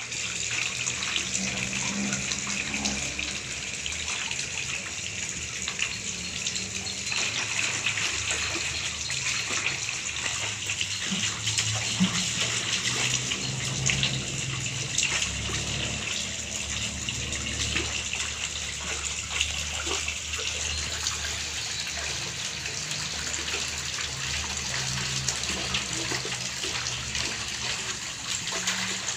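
Water sloshing and splashing in a large metal basin as a toddler swishes and slaps it with his hands, a continuous wash with many small splashes.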